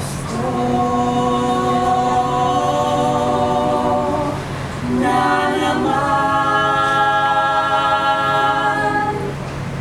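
Mixed choir singing a cappella without words: a long held chord, a short moving passage about five seconds in, then another long held chord that ends shortly before the close.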